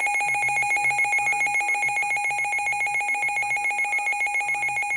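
Weather radio alert alarm sounding for an incoming severe thunderstorm warning: a loud, high-pitched electronic tone pulsing rapidly, about five beats a second.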